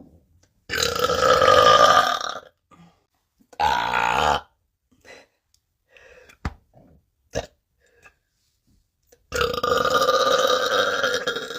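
A woman burping three times, loudly: a long burp about a second in, a short one soon after, and another long one near the end.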